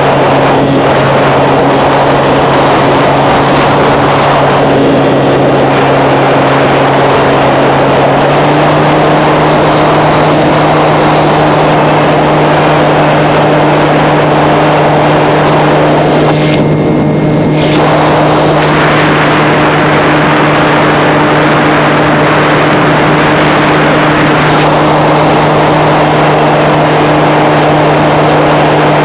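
Electric RC plane's motor and propeller running steadily, picked up by the onboard microphone under a loud rush of wind noise. The motor's pitch steps up slightly about eight seconds in as the throttle is raised. The rushing briefly thins out around seventeen seconds in.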